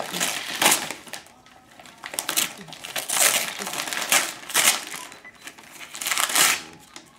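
Shiny metallic foil wrapping paper crinkling and tearing as a gift is pulled open by hand, in irregular bursts with a short lull about a second in.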